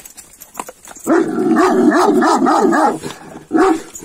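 A dog barks in a fast, wavering run lasting about two seconds, starting about a second in, then gives one short bark near the end.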